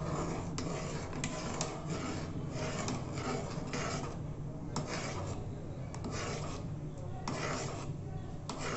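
Metal spoon stirring thickened milk in a metal pot, scraping and clinking against the bottom and sides in quick repeated strokes, about two a second, over a steady low hum.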